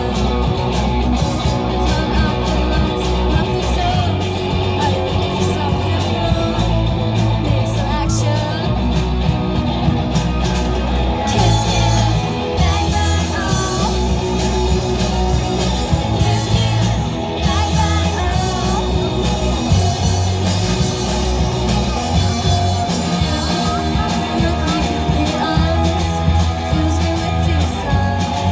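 Live psych-rock band playing a song through a PA: electric guitar and electric bass, with women's voices singing over it.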